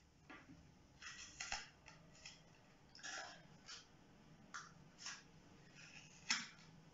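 Scissors snipping through a flattened cardboard toilet-paper roll, cutting it into strips. About a dozen short, irregularly spaced snips, the loudest near the end.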